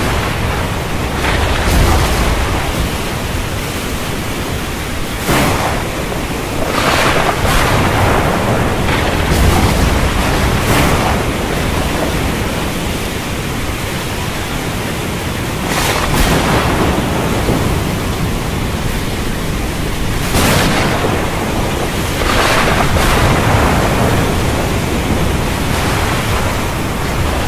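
Thunderstorm: a steady hiss of heavy rain with thunder cracking and rumbling several times, the cracks short and sharp, the rumbles swelling and fading.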